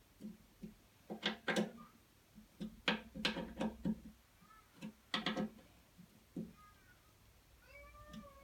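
Irregular clinks and knocks of tools and metal parts being handled while a race fuel cap is fitted to a motorcycle tank, with faint wavering squeaky tones near the end.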